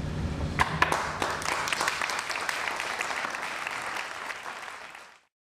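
Audience applause, starting about half a second in as a low steady drone fades out, then thinning and cut off abruptly near the end.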